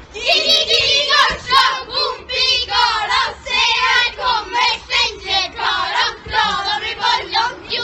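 A song with a high, wavering singing voice over a steady held backing note.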